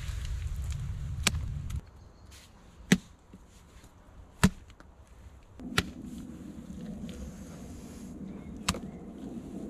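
About five sharp, separate knocks about a second or more apart, the loudest two near the middle. A low rumble plays under the first two seconds, and a steady rushing noise comes in about six seconds in.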